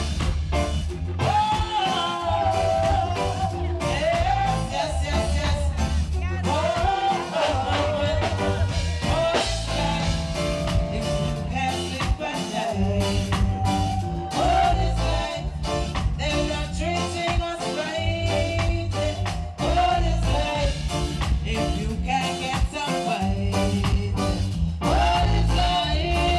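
Live reggae band: a woman singing lead over a heavy bass line and drum kit, with guitar.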